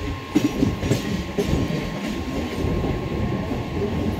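Indian Railways passenger coaches rolling past on the track: a steady rumble of wheels on rails, with a few sharp clacks over the rail joints in the first second or so.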